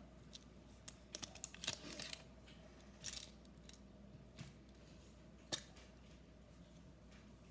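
Scattered small sharp clicks and crinkles from handling and eating mints, with a quick cluster between about one and two seconds in and a single sharp click a little past halfway.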